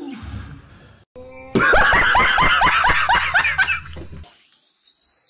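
A man laughing loudly in a rapid string of short 'ha' bursts, about five a second. It is an edited-in laughing clip and cuts off abruptly about four seconds in.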